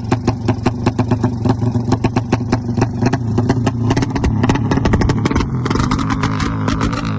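Race-tuned Suzuki Satria FU single-cylinder engine, bored out to 200cc, running on an open exhaust: a lumpy idle of about seven or eight beats a second, then revved up from about three seconds in, the beats quickening and merging into a steady high-rev note held near the end.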